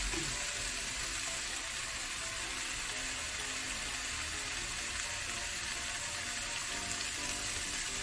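Sliced eggplant and vegetables sizzling steadily in a frying pan as they stir-fry.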